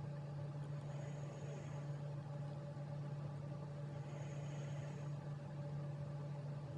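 A cat snoring softly in its sleep: faint breathy snores about every three seconds over a steady low hum.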